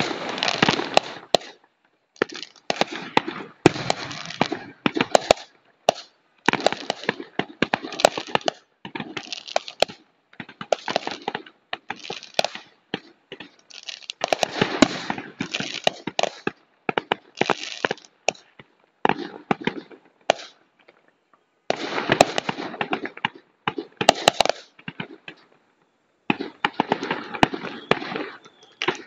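Aerial fireworks going off: rapid sharp bangs and crackling in clusters a second or two long, with short gaps between them.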